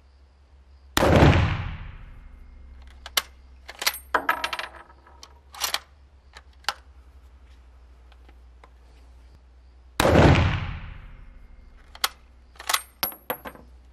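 Two shots from a Kar98k bolt-action rifle in 7.92×57mm Mauser, about nine seconds apart, each echoing briefly in a range hall. After each shot comes a run of sharp metallic clicks as the bolt is worked and the spent brass case is ejected, with a light ringing tinkle as the case lands.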